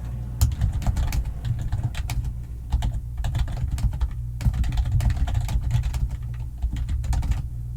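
Rapid typing on a computer keyboard, a dense run of key clicks with brief pauses.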